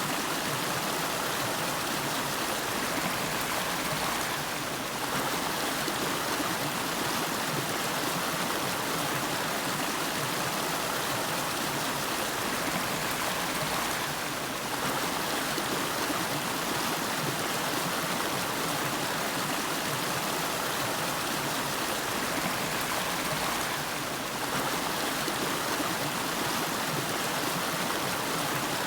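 River water flowing steadily over its bed, a continuous, even rushing of a stream.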